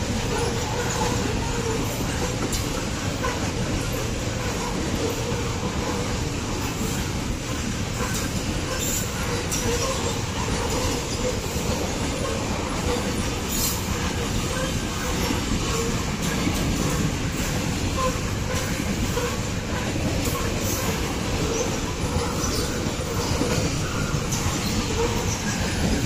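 Loaded Babaranjang coal train's wagons rolling past at speed: a steady rumble of steel wheels on the rails, with scattered clicks as the wheels cross rail joints.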